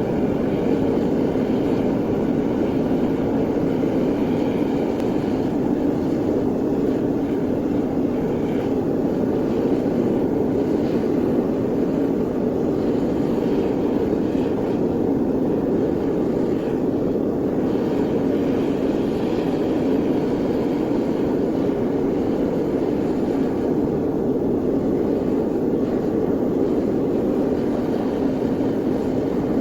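Burner of a metal-melting furnace running with a steady, unbroken rushing noise.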